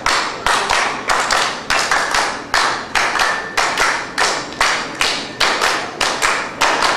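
A group of women clapping their hands in unison to a steady, even beat, a little under three claps a second.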